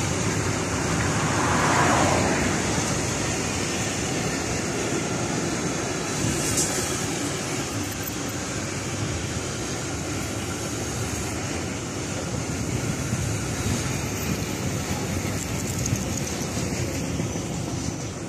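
Freight trains rolling past on the tracks, a steady rumble and rattle of wagons on the rails. About two seconds in, a car drives past on the road, swelling up louder and fading.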